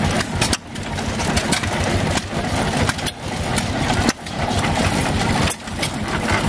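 Antique stationary gas engines running with a steady mechanical chug and many sharp clicks and knocks. The nearest is a vertical Fairbanks-Morse Jack of All Trades hit-and-miss engine, which works a geared pump jack.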